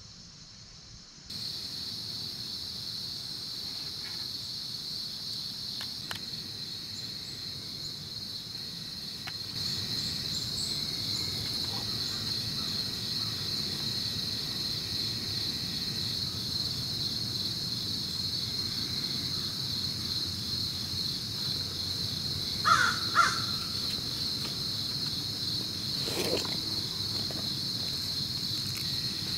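Steady high-pitched chorus of summer insects buzzing without a break. About three-quarters of the way through, two short harsh bird calls cut in.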